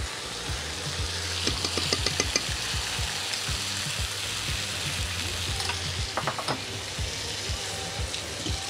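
Chicken breasts sizzling steadily in a frying pan, with a spoon stirring and tapping in a saucepan of sauce: a cluster of quick clinks about one and a half to two and a half seconds in, and another around six seconds.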